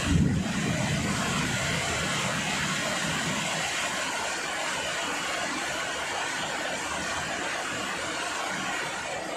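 Heavy rain pouring steadily, with a low thunder rumble at the start that fades away over the first few seconds.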